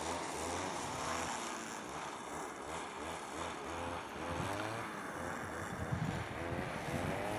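A motor running steadily with its pitch sliding up and down, most likely the drive of the coursing lure machine pulling the mechanical hare, with wind noise on the microphone.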